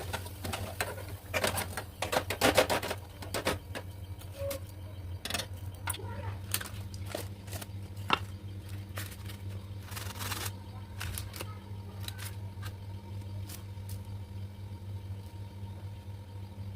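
Irregular kitchen clicks and taps, like utensils knocking against cookware, thickest about two seconds in and sparser afterwards, over a steady low hum.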